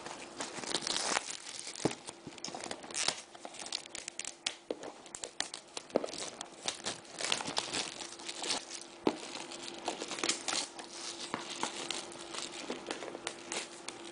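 Clear plastic wrapping being pulled off and handled: a continuous run of irregular crinkles and crackles, with some tearing.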